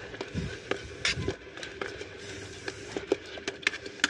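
A metal spoon stirring milk tea in a stainless steel electric kettle, clinking irregularly against the steel walls, with a couple of dull bumps in the first half. Under it is a steady hiss as the tea heats toward the boil.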